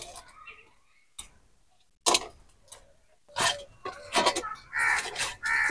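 Hands kneading soft flour dough in a stainless steel bowl, with sharp clicks and knocks from the metal bowl. In the second half several short animal calls sound over the kneading.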